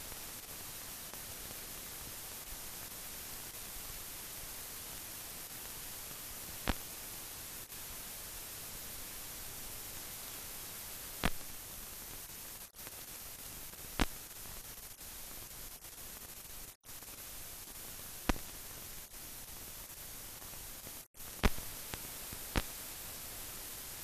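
Steady hiss of a blank film soundtrack with no recorded sound. About six sharp clicks come every few seconds, and the hiss drops out briefly three times.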